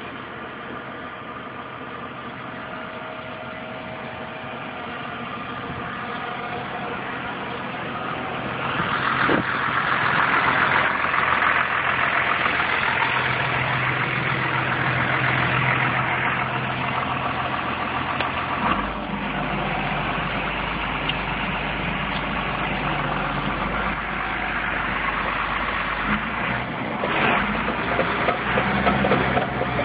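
Caterpillar D6N bulldozer's diesel engine idling steadily, getting louder over the first ten seconds, with a deeper hum setting in about two-thirds of the way through. A few knocks near the end.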